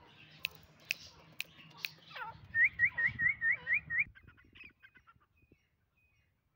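Grey francolin calling: a fast run of about seven short rising whistled notes, about five a second, stopping abruptly. A few sharp clicks come before the calls.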